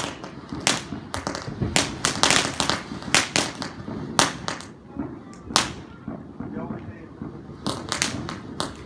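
Firecrackers going off at irregular intervals: about a dozen sharp cracks over a steady hiss, the loudest about five and a half seconds in.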